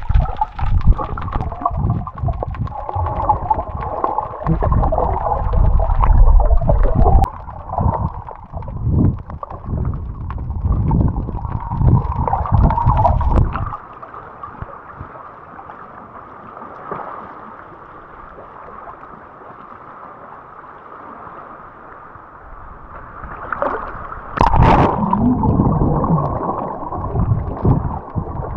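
Gusty wind buffeting the microphone in heavy low rumbles, dropping away for about ten seconds in the middle and returning near the end, over a steady rushing background.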